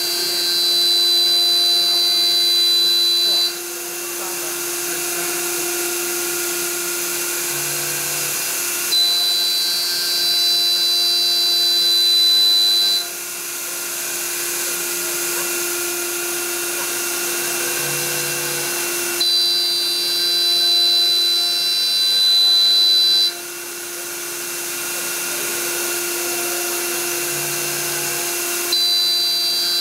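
CNC router spindle cutting circular holes into a wooden sheet, with its dust extraction running. The machine runs steadily, and roughly every ten seconds it gets louder with a high whine for about four seconds, then drops back.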